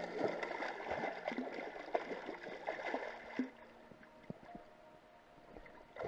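A hooked salmon thrashing at the water's surface beside the boat, with splashing and sharp slaps of water. The splashing eases about three and a half seconds in to quieter sloshing.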